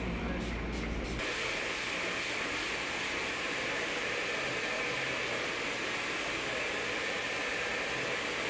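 Handheld hair dryer running steadily, a continuous airy hiss that comes in abruptly about a second in, replacing a low hum.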